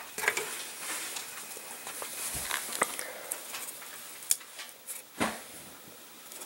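Scattered light clicks and taps in a small room, with a soft thump about five seconds in.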